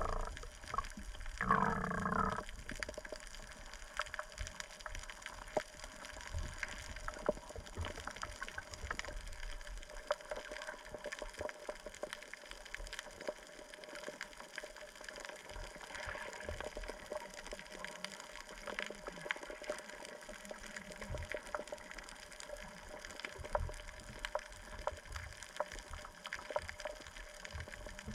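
Underwater sound picked up by a submerged camera: a steady muffled wash of water dotted with many faint crackling clicks. There is a short louder muffled burst about two seconds in.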